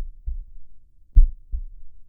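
Slow heartbeat, each beat a deep double thump, the second weaker than the first, with about a second and a quarter between beats; two beats fall here.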